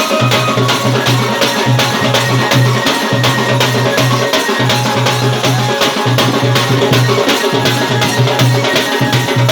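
Saura tribal dance music: percussion played in a fast, even beat, with a low drone that cuts in and out every second or so.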